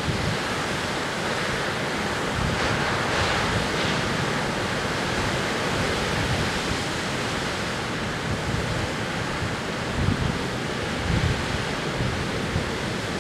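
Atlantic surf breaking on a sandy beach: a steady wash of waves, a little brighter about three seconds in, with wind rumbling on the microphone about ten seconds in.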